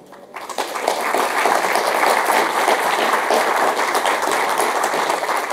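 Audience applauding, many hands clapping together; it starts about a third of a second in, builds quickly and holds steady, easing off slightly near the end.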